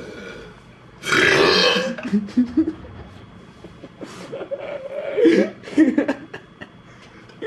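A person belching loudly on purpose, several times: a harsh, rough belch about a second in lasting about a second, then long drawn-out belches that waver in pitch, the longest from about four and a half to six seconds.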